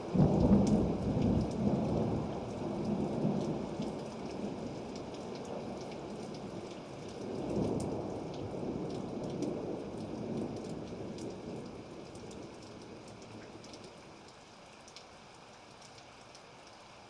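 Thunderstorm: a thunderclap breaks right at the start and rumbles on for about four seconds. A second rumble of thunder rolls in about seven seconds in and dies away, leaving steady rain.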